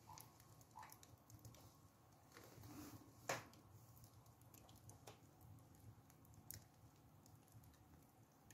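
Faint, scattered ticks and crackles from glowing embers in a stove firebox, with one sharper crack a little over three seconds in, over a low steady hum.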